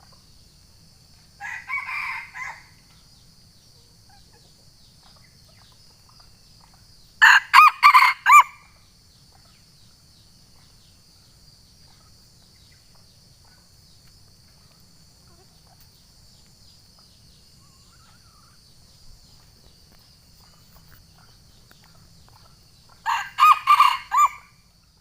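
Wild junglefowl rooster crowing twice, each crow a short, clipped run of several quick notes, with a softer, shorter call about two seconds in. A faint, steady high hiss sits underneath.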